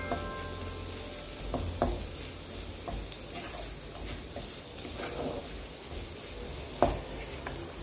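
Water spinach (kolmi shak) sizzling as it is stir-fried in a kadai, with a wooden spatula scraping through the greens and knocking against the pan now and then, the sharpest knock near the end.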